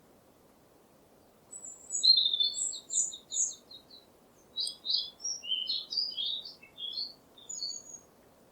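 A songbird singing one phrase starting about a second and a half in: a quick trill of repeated high notes, then a string of varied chirps.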